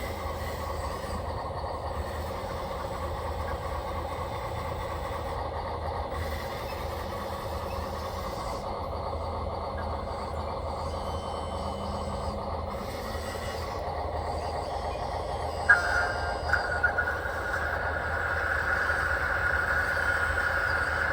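Electric drive motors and gearboxes of radio-controlled construction machines whining steadily, with a low hum underneath. About 16 seconds in there is a sharp click, and a higher-pitched whine starts and gets a little louder to the end.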